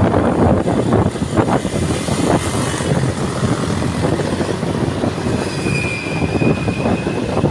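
Loud, steady rumbling noise of a vehicle on the move, with a steady high-pitched squeal lasting about two seconds near the end.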